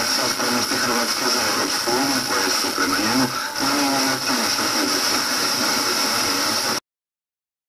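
FM tuner receiving a distant station, HRT HR1 on 94.9 MHz from 594 km away, at the edge of reception: a talk broadcast is faint beneath heavy steady hiss. The audio cuts off suddenly near the end.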